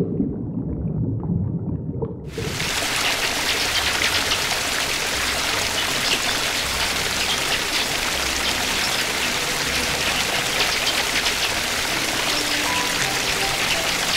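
A steady, dense rush of water, like heavy rain or a fast stream, starts abruptly about two seconds in. Before it, a low-pitched sound fades out.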